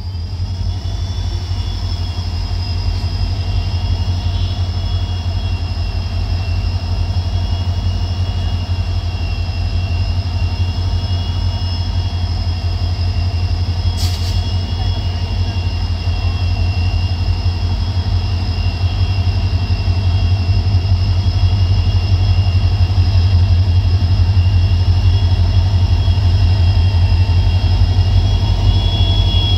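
Two EMD WDP4B diesel locomotives' 16-cylinder two-stroke engines running with a deep, steady throb as they pull a passenger train out, growing louder as they draw near. A steady high whine sits above the engine sound, and a single sharp click comes about halfway through.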